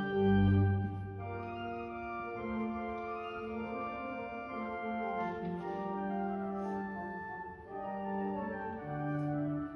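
Pipe organ playing slow, held chords: a loud low bass note sounds at the start, then softer sustained chords follow, changing about every second.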